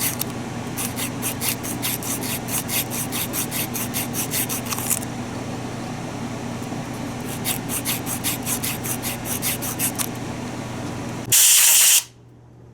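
Fine 220-grit sandpaper rubbed back and forth on the commutator of a power window motor, about four strokes a second, in two spells with a pause between. Near the end, a short loud hiss of spray.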